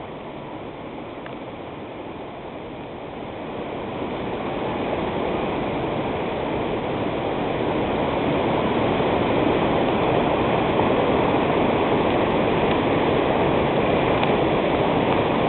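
Steady rush of whitewater pouring over a river ledge in rapids, growing louder about four seconds in.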